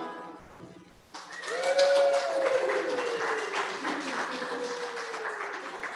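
A dog howling: one long call starting about a second in, rising briefly and then sliding slowly down in pitch for about four seconds, over clapping.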